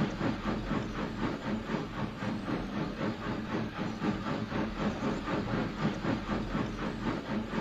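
Steam locomotive chuffing at a steady, brisk beat, about four to five exhaust beats a second, over a low rumble.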